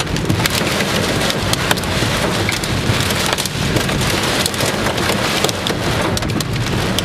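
Large hailstones and heavy rain pelting a car: a dense, steady rush of rain with many sharp, irregular hail impacts throughout, from hail big enough to dent the car's body.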